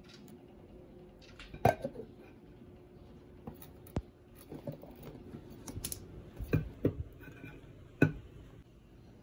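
A Skyfolio insulated mug and its plastic lid being handled: a run of light clicks and taps as the lid is turned and fitted onto the mug, then a sharp knock about eight seconds in, the loudest, as the mug is set down on an acrylic coaster.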